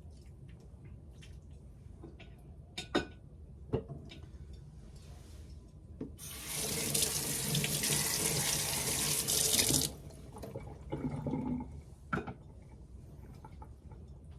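Kitchen tap running for about four seconds, starting about six seconds in and cutting off, with a few short knocks before and after it.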